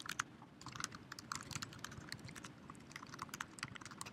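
Typing on a computer keyboard: a quick, uneven run of faint keystroke clicks.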